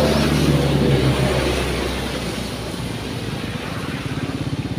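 Motor vehicle engines running on the road, loudest in the first second or so as a vehicle passes close, then settling into a lower, evenly pulsing engine sound.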